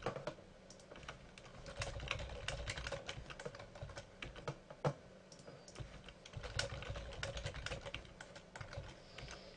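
Typing on a computer keyboard: quick runs of keystrokes with short pauses between them, and one sharper key click about five seconds in.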